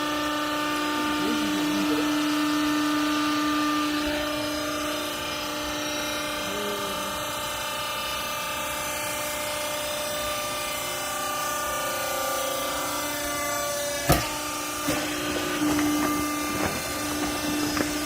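Vertical hydraulic baler's pump motor running with a steady whine. A sharp knock comes near the end, followed by a few lighter knocks.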